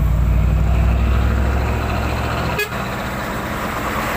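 Heavy truck diesel engine running close by with a deep, steady drone. It breaks off abruptly a little past halfway, leaving general road-traffic noise.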